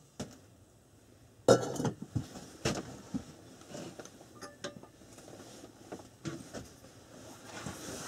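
Cookware and mugs being handled: a run of clinks and knocks. The loudest comes about a second and a half in, followed by scattered lighter knocks.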